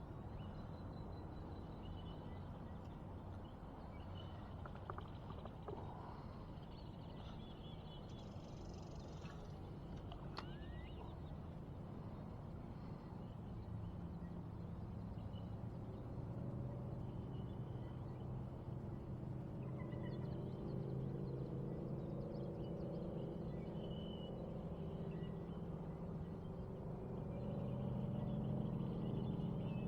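Outdoor river ambience: scattered bird chirps and a short rising bird call about ten seconds in, over a steady background. A low engine hum builds from about halfway through, louder near the end.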